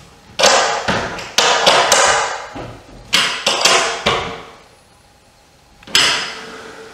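A series of sharp knocks and scrapes, each fading over about half a second, as an end stop is fitted into a black steel sliding barn door track with a small hand tool. There is a pause of about a second around the middle, then one last knock near the end.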